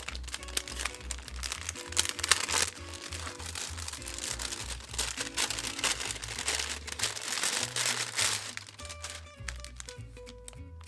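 Kraft paper wrapping crinkling and rustling as a package is pulled open by hand, over background music with a steady bass line.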